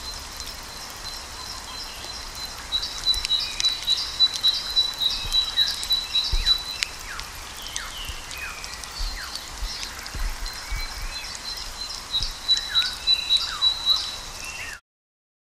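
High-pitched chirping calls: a rapid trill sounds in two stretches, with short falling chirps between them. The sound cuts off suddenly near the end.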